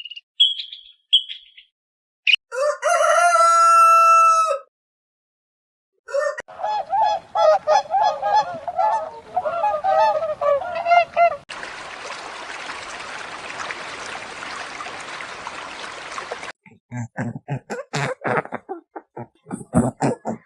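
A run of separate animal-call clips, chiefly domestic fowl. First comes one long pitched call of about two seconds, then about five seconds of rapid repeated calls, then a steady hiss for about five seconds, and scattered clicks near the end.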